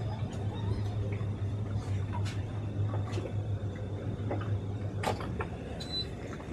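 Low, steady drone of the towboat's twin Suzuki outboard motors running while towing a yacht, with scattered light clicks and ticks over it.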